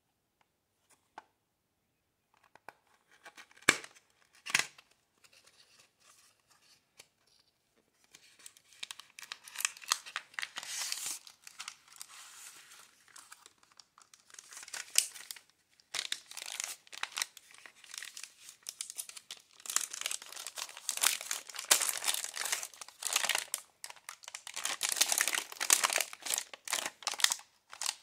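Packaging crinkling and tearing as it is opened, in stretches with short pauses. Two sharp knocks come about four seconds in, before the crinkling starts.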